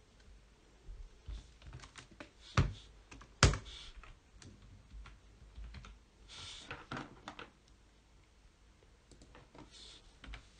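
Computer keyboard typing in sparse, irregular keystrokes, with two much louder clicks about two and a half and three and a half seconds in.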